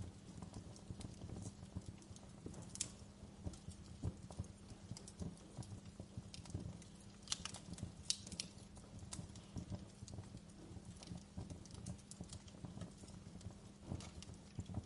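Wood fire crackling in a fireplace: irregular pops and snaps over a low steady rumble, with a quick run of sharper snaps about halfway through.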